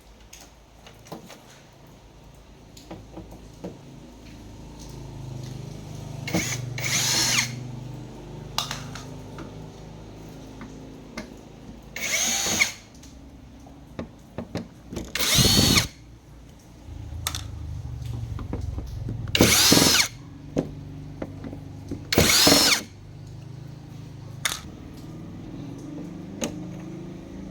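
Electric screwdriver running in five short bursts, each winding up and down in pitch, as screws are driven or backed out.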